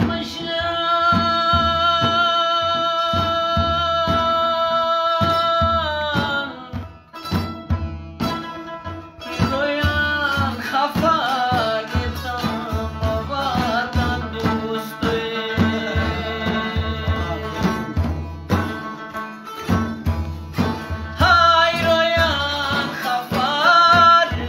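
Chitrali folk song: a male voice holds one long note for about six seconds, then sings a wavering, ornamented melody. Underneath run steady rhythmic strokes on a hand-struck frame drum, with a Chitrali sitar (long-necked plucked lute).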